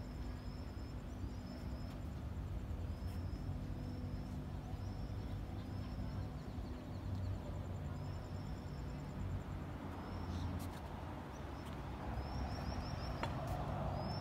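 Outdoor evening ambience: a low steady rumble underneath, with short high chirps repeating every second or so in small groups, and a few faint clicks near the end.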